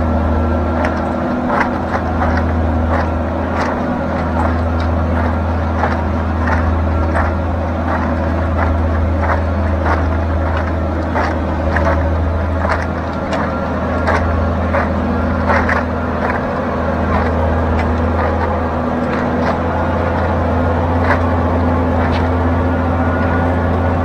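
John Deere tractor's diesel engine running steadily under load, pulling a pipe ripper through wet ground, with frequent light irregular knocks and rattles over it.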